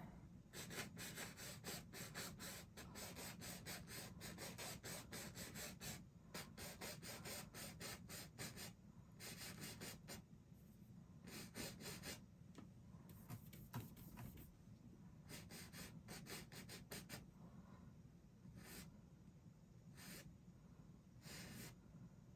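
Faint scratchy strokes of a paintbrush's bristles on canvas, coming in quick runs broken by short pauses.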